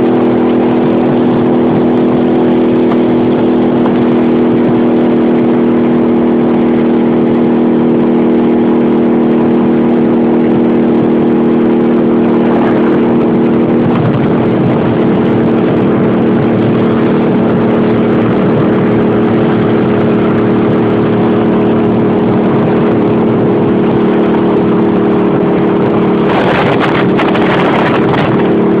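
Cruiser motorcycle engine running steadily at highway cruising speed, with wind rushing over the microphone. The engine note wavers briefly about halfway through, and a louder rush of noise comes near the end.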